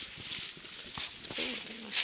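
Dry fallen leaves and forest litter rustling and crinkling close to the microphone. About a second and a half in comes a brief, low, held murmur from a person's voice.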